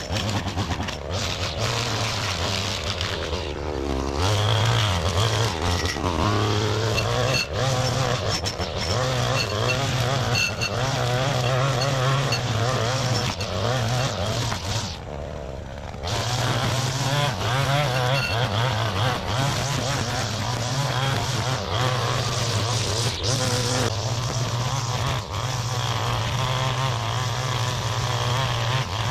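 Gas-powered string trimmer running hard while cutting tall grass, its engine speed stepping up and down as the throttle is worked. It drops back to a low idle briefly about halfway through, then revs up again.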